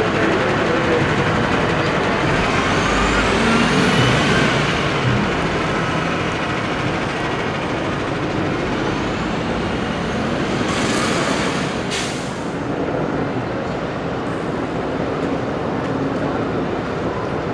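City street traffic with a heavy transit vehicle going by: a rising whine a few seconds in, and two short hisses of air about two-thirds of the way through.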